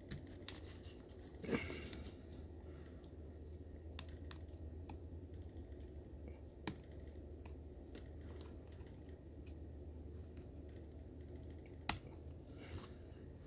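Fingers and fingernails working the stiff battery-tray clip of a thin plastic LED remote: faint scattered plastic clicks and scratches, with a sharper click about a second and a half in and another near the end, over a low steady hum.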